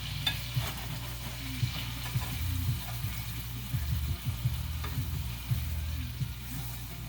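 Monkfish pieces sizzling as they pan-sear in butter in a frying pan, a steady sizzle with scattered pops and crackles.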